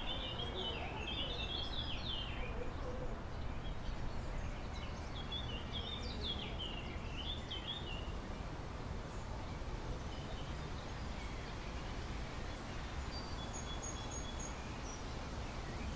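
Small birds chirping in two bursts of quick twittering, one at the start and one about six seconds in, with a few faint high notes near the end, over a steady low rumble of outdoor ambient noise.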